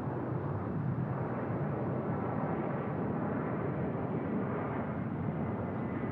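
Jet airliner engines heard as a steady rumble, building just before and then holding level.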